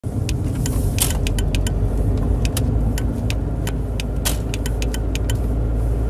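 Indicator relay of a 2002 VW Golf clicking at random, in an irregular run of sharp clicks, over steady engine and road noise inside the moving car's cabin. The stray clicking is the sign of worn or dirty contacts in the indicator stalk.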